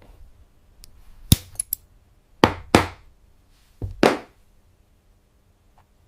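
Skiving knife working a leather edge: a sharp click about a second in, then two pairs of short scraping strokes.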